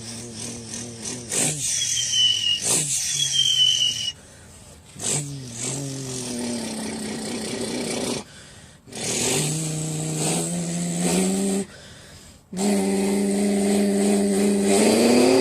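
A man imitating engines with his mouth: several bursts of a buzzing engine-like drone, held steady and then rising like revving near the end, meant as a Zanella motorcycle, a straight-piped engine and a tractor.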